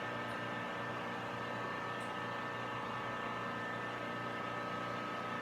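Steady background hum and hiss of room tone, with faint steady tones and no distinct events.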